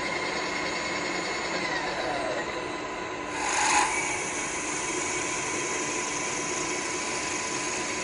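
Universal milling machine running with a steady mechanical whine, with a brief louder rush of noise about three and a half seconds in.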